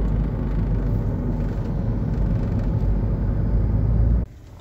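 Steady low rumble of road and engine noise from a vehicle driving along, heard from inside the cabin. It drops away suddenly near the end to a much quieter hum.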